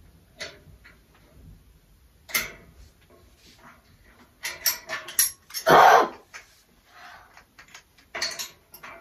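Plastic caster wheels being handled and pushed into the tubular metal legs of an IKEA Råskog trolley: scattered clicks and knocks, with one louder, half-second clatter about six seconds in.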